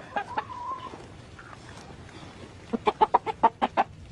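Chicken clucking: a quick run of about nine clucks, roughly eight a second, about three seconds in.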